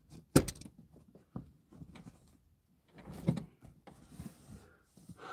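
Handling noises inside a car cabin: a sharp knock about half a second in and a heavier clunk around three seconds in, with light clicks and rustling between them.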